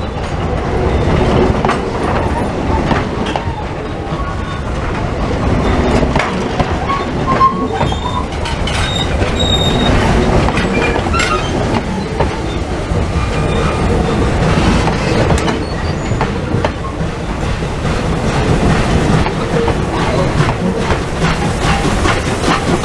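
Railway passenger coaches rolling past close by, their wheels clicking over the rail joints, with brief high wheel squeals now and then over a steady rumble.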